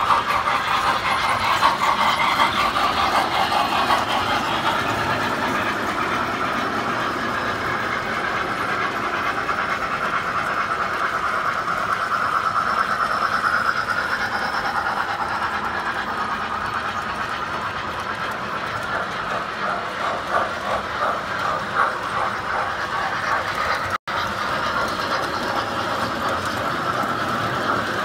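Lionel standard-gauge tinplate toy trains running on three-rail track: a steady clattering rumble of metal wheels over the rails, with a momentary break about three-quarters of the way through.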